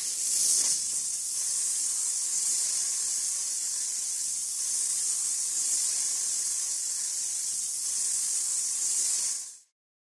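Steady hiss of spraying compressed air, starting abruptly and cutting off after about nine and a half seconds.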